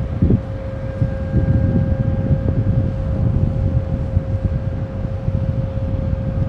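Wind buffeting the microphone in loud, gusty low rumbles over a steady hum from the container ship passing close by.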